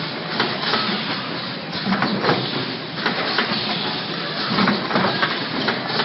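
Rotary lotion filling, plugging and capping machine running: a steady mechanical clatter with frequent, irregular clicks and clacks.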